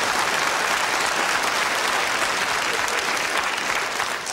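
Studio audience applauding, a steady wash of clapping that eases off near the end.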